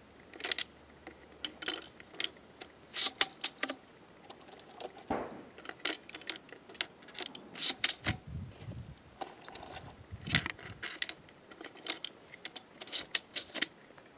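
Aguila Minishell 12-gauge shells being pushed one by one into the twin magazine tubes of a DP12 pump-action double-barrel shotgun. The sound is a string of uneven sharp clicks and clacks as shells seat in the tubes and knock together in the hand, with a few duller thumps of handling partway through.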